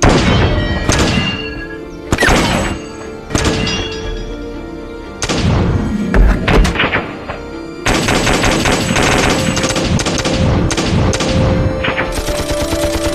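Staged battle gunfire: heavy single reports every second or two, then from about eight seconds a long stretch of rapid machine-gun fire. Dramatic music plays underneath.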